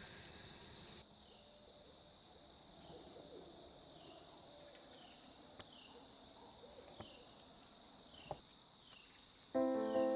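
Faint outdoor woodland sounds: a steady high insect buzz that cuts off about a second in, then quiet with faint high chirps repeating about once a second and a couple of faint low hoots. Background music comes in near the end.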